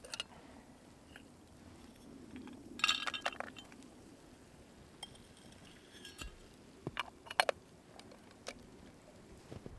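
Light clinks and knocks of camp cookware being handled, in scattered groups: a rapid cluster about three seconds in, then a few sharper single clinks later on.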